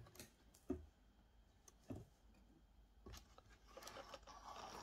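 Near silence, with a few faint taps and a soft rustle of paper near the end as the pages of a printed user guide are turned.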